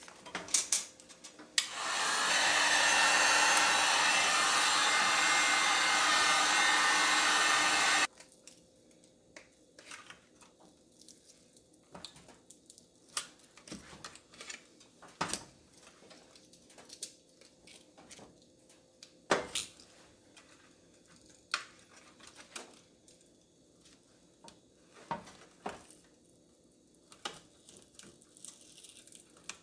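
Heat gun blowing steadily for about six seconds, starting about two seconds in and cutting off suddenly, heating to soften the adhesive backing of a control-board overlay. After it stops come scattered light clicks and knocks from handling the board, with one sharper knock midway.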